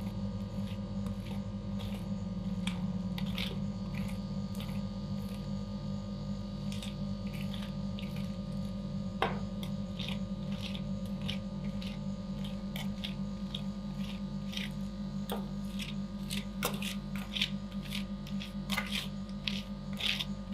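Steady low hum of a refrigerated ice cream roll pan, with scattered taps and scrapes of metal spatulas on the cold steel plate. The taps come more often near the end.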